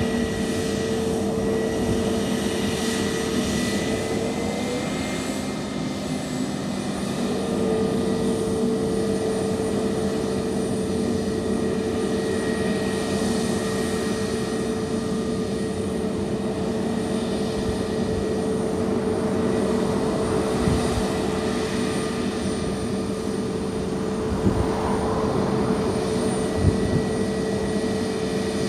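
Twin jet engines of an easyJet Airbus A320neo-family airliner running at low power on the runway, a steady whine over a low hum. The whine breaks off about five seconds in and returns a couple of seconds later. This is the idle before the takeoff roll.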